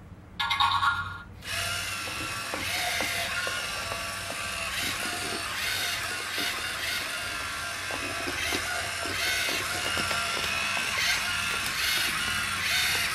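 LEGO Mindstorms EV3 robot's motors whirring and gear-clicking as it drives and turns, mixed with music. A loud, short electronic tone sounds about half a second in.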